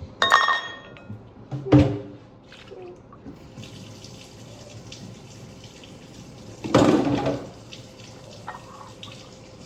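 Kitchen tap running into a sink, with a few clinks and knocks of glass and dishes being handled. A ringing glass clink comes right at the start, a knock follows a second or so later, and a louder clatter comes near the end.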